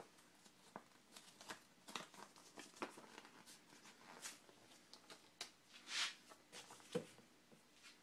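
Faint rustling and light taps of paper cookbook booklets being handled, with a louder paper swish about six seconds in and a soft knock about a second later as a booklet is laid down.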